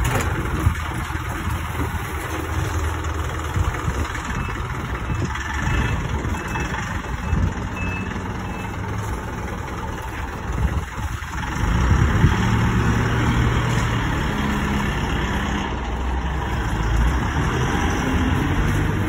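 Isuzu light truck's diesel engine running as the truck pulls away and drives off, louder from about twelve seconds in as it passes close by. A few faint short beeps sound in the first half.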